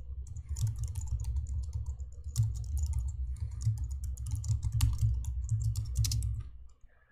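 Typing on a computer keyboard: a rapid, uneven run of keystrokes that stops shortly before the end.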